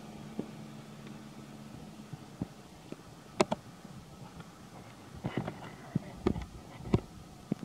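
Sharp crisp clicks, a pair about three and a half seconds in and a cluster near the end, as a long-tailed macaque bites and chews a green leaf. A faint steady low hum stops about two seconds in.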